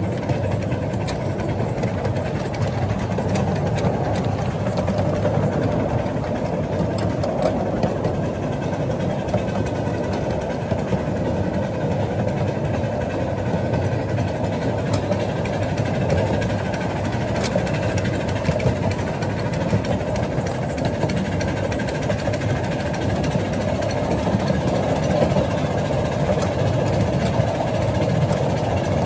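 7¼-inch gauge miniature steam locomotive and riding car running steadily along the track: a continuous rumble of wheels on the rails and the working engine, with scattered small clicks.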